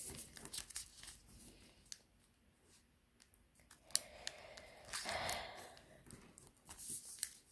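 Square of origami paper rustling and crinkling faintly as fingers fold its corners in to the centre and press the creases, with scattered small clicks and a longer rustle about four to five and a half seconds in.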